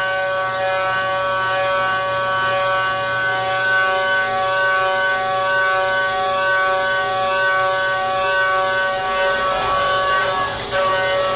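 CENTROID A560 5-axis CNC porting machine's spindle driving an end mill through a port of an aluminum cylinder head under flood coolant: a steady high whine of several tones. Near the end the whine wavers and a few sharp ticks come in as the cut changes.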